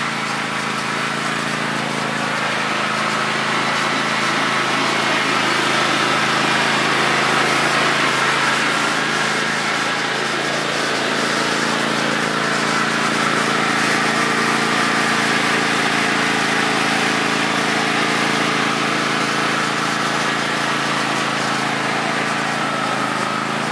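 John Deere X320 lawn tractor's 22 hp Kawasaki V-twin engine running steadily under load as the tractor climbs a steep slope, without bogging down.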